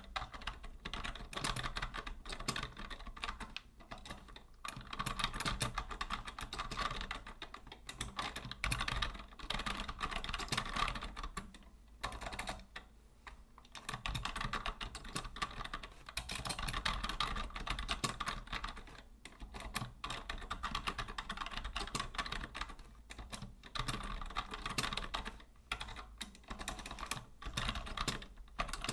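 Typing on a vintage Logitech Deluxe 104 wired keyboard: fast runs of key clicks, broken by a few short pauses.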